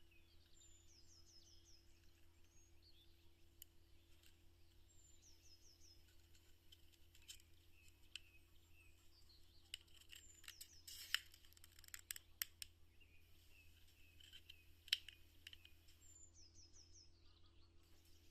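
Faint crafting sounds: a quick run of small, sharp clicks and taps about ten to thirteen seconds in and another near fifteen seconds, over a steady low hum. A bird chirps a short falling trill now and then in the background.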